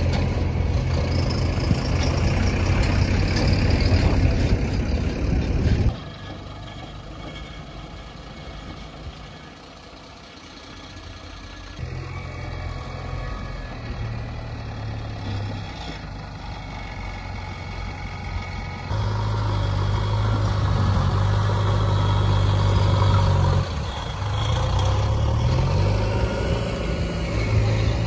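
Diesel engine of a JCB Eco Excellence backhoe loader running steadily at work. It drops sharply in level about six seconds in and comes back louder in the second half.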